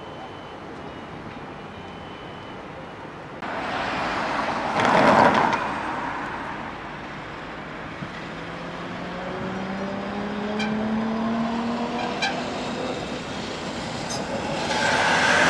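AnsaldoBreda Sirio light-rail tram approaching along the track, its electric traction drive whining in several tones that slowly rise in pitch as it speeds up. It grows much louder near the end as it comes close. About five seconds in, a passing road vehicle makes a brief loud rush.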